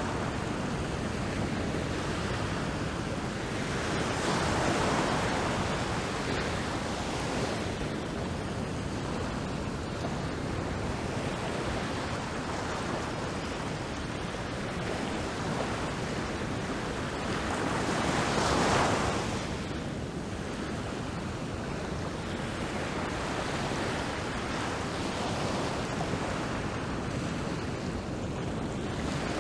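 Rough ocean surf, a steady rush of breaking waves and foam that swells twice: about four seconds in, and more strongly a little before the twenty-second mark.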